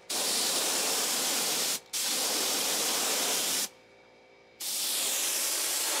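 Air-fed gravity-cup paint spray gun spraying in steady hisses as the trigger is pulled and released: two pulls of nearly two seconds each with a brief break between, then a pause of about a second before a third.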